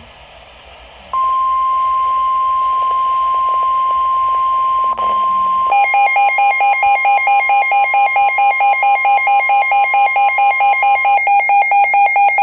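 Emergency Alert System warning tones: a steady single-pitch alert tone near 1 kHz starts about a second in. About halfway through, a rapid, harsh beeping alarm from the Sage EAS ENDEC joins it, several beeps a second. The steady tone stops near the end while the beeping goes on.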